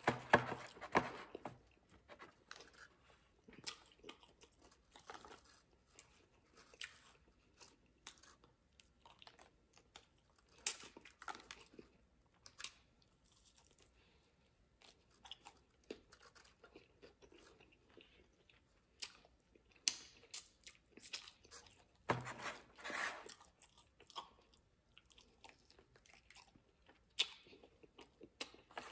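A person biting into and chewing crispy Wingstop bone-in chicken wings: irregular crunches and mouth clicks, with a louder run of chewing a little past two-thirds of the way through.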